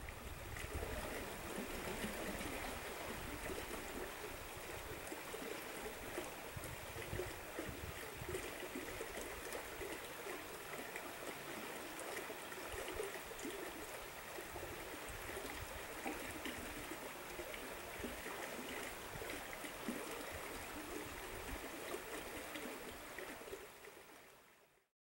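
The Burnt River flowing: a steady rush of water running over its bed, without a break.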